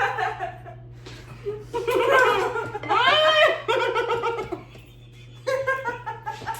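A girl laughing in bursts of high giggling, strongest between about two and four and a half seconds in, with another short burst near the end.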